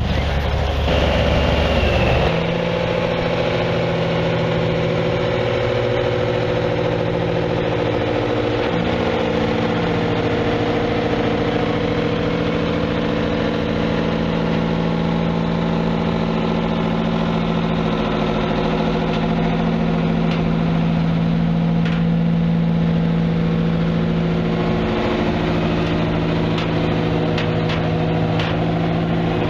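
Detroit Diesel V12 in the Randall Delta Force 750 'Earthquake' four-wheel-drive tractor idling steadily, with a slight dip in engine speed twice early on. The first two seconds hold a different, deeper rumble.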